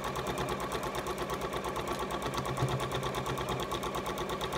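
Electric sewing machine stitching at a steady speed: a fast, even ticking of the needle over the hum of its motor.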